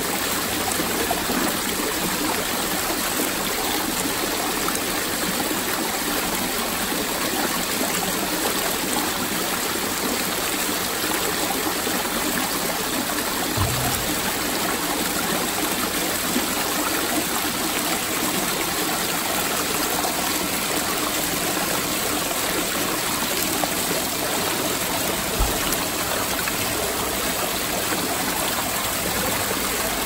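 Water splashing and trickling steadily down the tiers of an artificial rock waterfall into its pool, a constant even rush. Two brief low bumps stand out faintly, about halfway through and again later.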